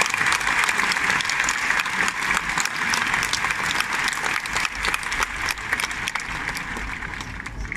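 A large bullring crowd applauding, a dense sustained clapping that dies away near the end.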